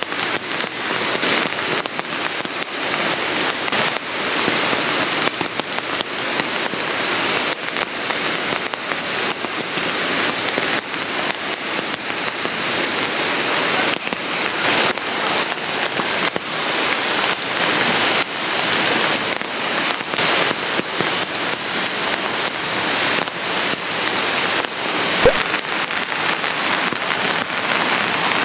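Steady rain falling, a dense patter of drops. One sharp knock near the end.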